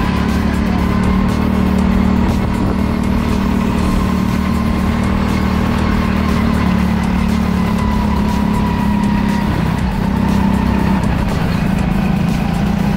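Go-kart running steadily at racing speed on the track, a constant motor drone with a faint whine that drifts slowly in pitch.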